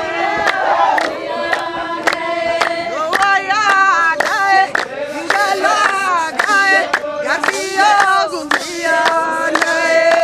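Crowd singing a traditional Oromo song together, with long held notes and a steady beat of sharp claps about two a second.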